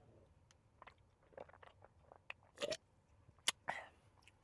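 Faint chewing of a chocolate-covered wafer, heard close up, with a few short crunchy clicks and mouth noises scattered through it.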